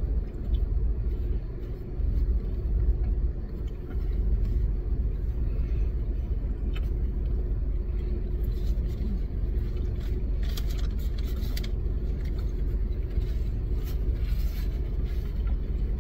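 Steady low rumble of a car idling, heard from inside its cabin, with a faint steady hum over it. Faint brief rustles come about two-thirds of the way in and again near the end.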